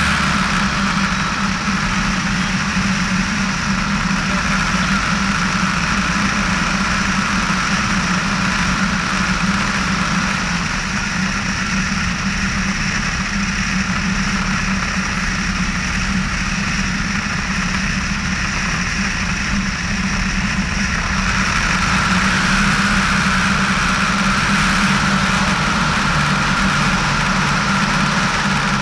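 Piper PA-18-150 Super Cub floatplane's four-cylinder air-cooled engine and propeller running steadily in flight. The hiss higher up grows a little stronger about three-quarters of the way through.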